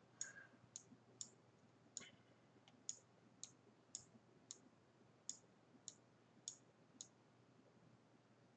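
Faint, sharp clicks of a computer mouse, about a dozen of them at roughly two a second and unevenly spaced, as objects are selected and moved in 3D software.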